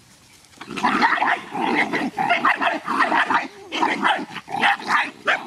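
Dogs growling and snarling in a rapid string of loud, rough bursts, starting about half a second in.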